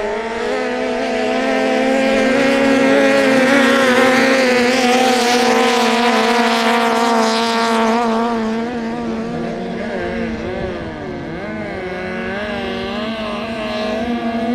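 Longtail racing boat engines running flat out as two boats race past, with the hiss of their spray. The sound swells to its loudest about four to seven seconds in, then fades, and the overlapping engine notes waver in pitch.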